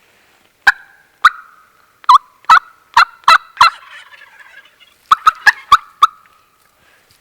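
Loud turkey calling: a run of seven sharp notes about a third of a second apart, a short pause, then five more.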